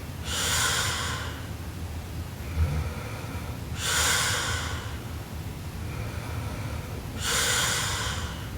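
A sleeping woman snoring: three loud, breathy snorts, each about a second long and about three and a half seconds apart.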